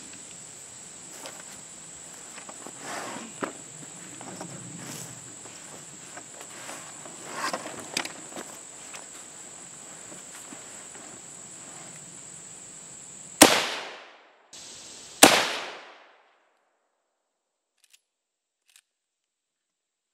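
Two rifle shots from a Winchester Model 94 lever-action rifle, fired less than two seconds apart about two-thirds of the way in, each with a short echoing tail. Before them there is a steady high insect drone and a few small handling clicks.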